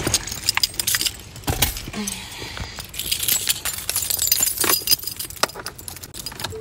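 Keys jangling, amid clicks, knocks and rubbing from a handheld phone being moved about in a car.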